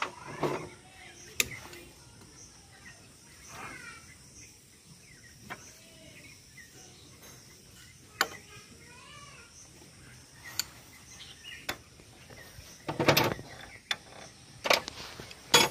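Metal tools and parts clinking and knocking on a power tiller's gearbox casing as a box spanner works a nut and the brake-side cover comes off. There are sharp single taps scattered through and a few louder knocks near the end, with birds chirping in the background.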